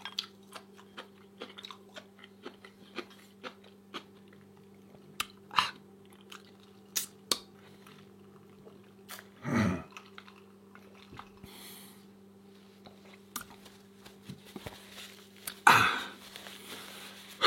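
A person chewing food close to the microphone: many small wet clicks and crunches, with a couple of louder mouth sounds about halfway through and near the end.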